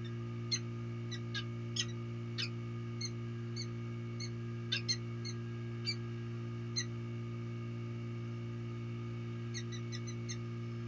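Peregrine falcon calling at the nest ledge: a series of short, sharp chip notes, about a dozen spread irregularly over the first seven seconds, then four quick ones near the end, over a steady low electrical hum from the nest camera.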